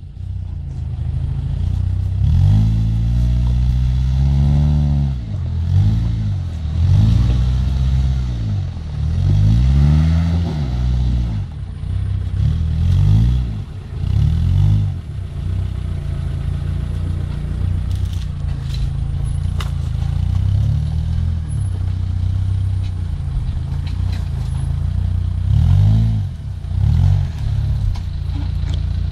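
Suzuki Jimny engine revving in repeated surges as it climbs a loose rocky slope under load, the revs rising and falling every second or two. Sharp clatters and scrapes come from the tyres and underbody on the rocks.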